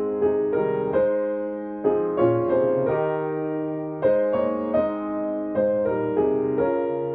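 Solo piano playing a hymn as the church service's postlude: a slow tune in chords, each struck note dying away.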